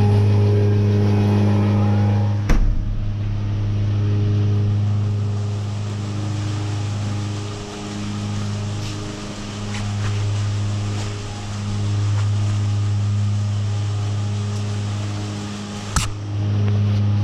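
Steady, loud mechanical hum of machinery running in a dairy milking shed's machine room. Two sharp knocks sound over it, about two and a half seconds in and near the end.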